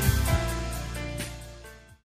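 Background music with bass and sustained notes, fading out and then cutting off.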